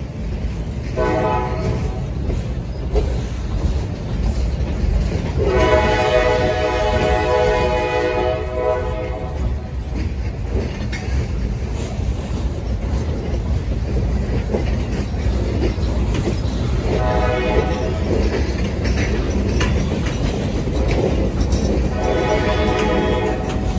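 A freight train rolling past with a steady rumble and clatter of wheels on rail. The locomotive's air horn sounds four blasts: a short one about a second in, a long one of about four seconds, then two shorter ones towards the end.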